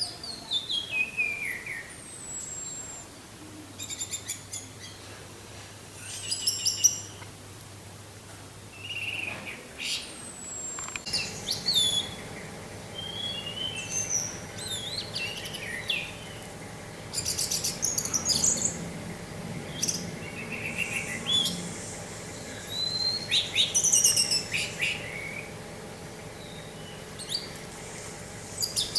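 Orange-headed thrush singing: a run of varied short whistled phrases, many gliding downward in pitch, with short pauses between them. About eleven seconds in, a faint steady hum comes in underneath.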